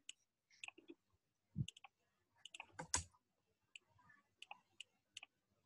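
Faint, irregular clicks and taps, about a dozen scattered through, from a stylus writing on a pen tablet.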